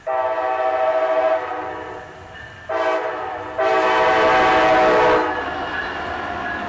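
Brightline passenger train's horn sounding for a grade crossing: a long blast, a short one and a loud long one, the last the loudest. Then the rushing noise of the locomotive passing close by.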